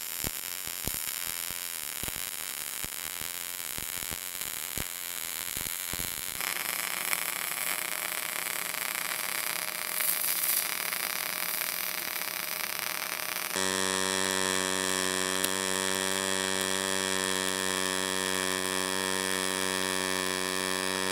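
MIG welding arc in three transfer modes in turn. For about the first six seconds the short-circuit arc crackles with irregular sharp pops. Then the spray-transfer arc gives a steady hiss, and about two-thirds of the way through the pulsed arc takes over with a steady buzz.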